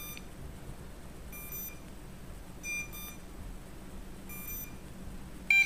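Short, high electronic beeps from the MJX Bugs 2W quadcopter set, one about every one and a half seconds, then a quick run of several beeps near the end.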